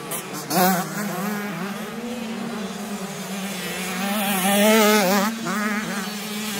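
85cc two-stroke motocross bikes revving hard through a corner, their engine pitch rising and falling in quick throttle blips over a steadier engine note, loudest near the middle as they come closer.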